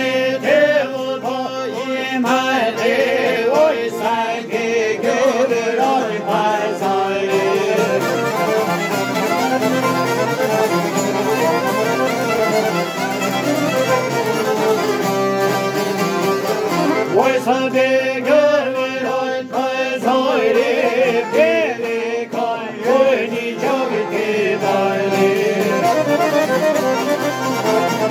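Albanian folk tune played live on a Weltmeister accordion with a violin, the fiddle's wavering melody over the accordion's sustained chords.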